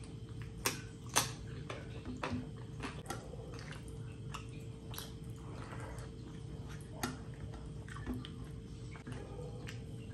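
Close-up eating sounds: wet chewing and mouth noises, with the squish of a hand mixing rice and curry, broken by sharp clicks scattered throughout, the two loudest about a second in. A faint steady hum runs underneath.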